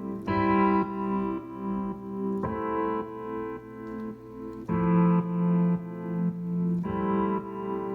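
Electric keyboard piano playing held chords, a new chord about every two seconds. Its volume pumps up and down in a steady rhythm, ducked by a sidechain compressor keyed by a kick-drum loop that is not itself heard.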